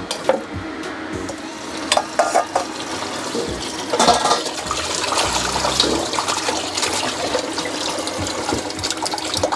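Kitchen tap running into a basin as blanched pork spare ribs are rinsed by hand to wash off the blanching scum, the water starting about four seconds in. Before that, a few sharp knocks.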